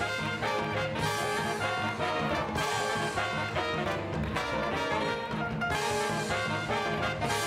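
Big band swing music, with the brass section of trombones and trumpets playing.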